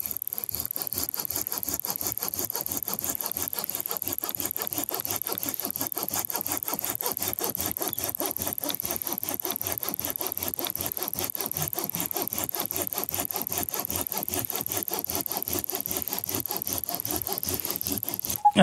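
Felco pull-stroke pruning saw cutting through a dry spruce log in quick, even strokes, each a rasp of teeth on wood. A thin, steady high whine runs under the sawing.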